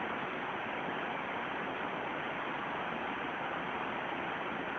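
Steady rain falling, an even hiss with no single drops or events standing out.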